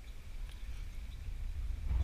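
Low, gusting rumble of wind buffeting the microphone, with a few faint ticks.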